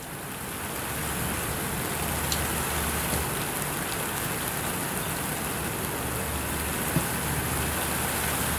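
Steady rain falling, an even hiss with a low rumble underneath, fading in over the first second.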